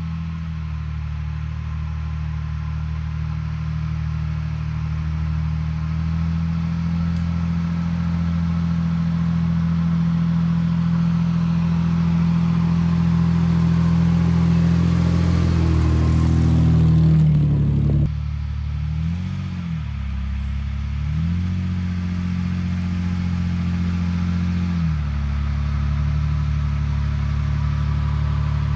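Nissan Frontier pickup's engine pulling steadily, growing louder with the revs climbing to a peak a little past halfway, then dropping back suddenly and changing pitch a few times as the throttle eases and picks up again.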